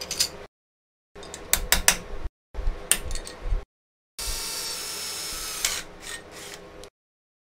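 Metal parts of a steel slide-bolt lock clicking and knocking against each other in a bench vise, in short chunks with sudden silences between them. About four seconds in, an electric drill runs steadily for under three seconds, drilling into the steel plate.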